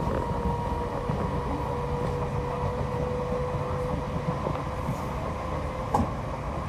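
A Merseyrail electric train running at speed, heard from inside the carriage: a steady rumble of the wheels on the track with a steady whine over it. A single sharp click about six seconds in.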